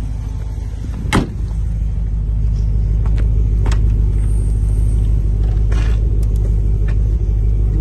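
Range Rover's Rover V8 idling with a steady low rumble, a little louder from about two seconds in. A single sharp thump about a second in.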